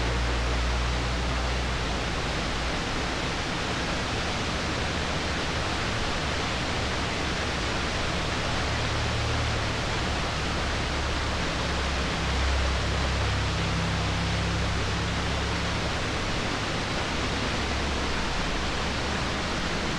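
Small waterfall splashing down rocks: a steady rush of falling water.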